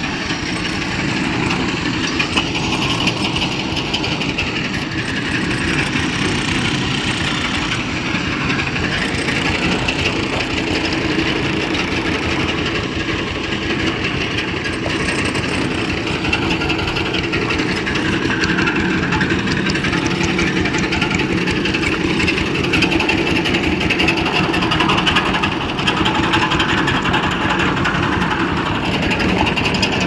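An engine running steadily and unchanging, with a constant noisy background.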